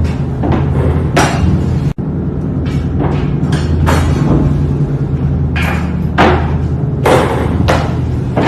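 A series of sharp knocks and thuds, about nine spread over several seconds, over a steady low hum.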